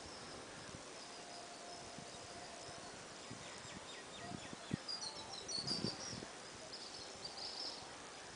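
Faint outdoor ambience: scattered short high bird chirps, busiest just past the middle, over a steady soft hiss. There are also a few soft low thumps.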